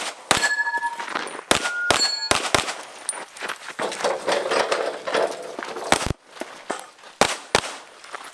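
Handgun shots fired in quick pairs and singles, about eight in all with a pause of a few seconds in the middle, some followed by the short metallic ring of steel targets being hit.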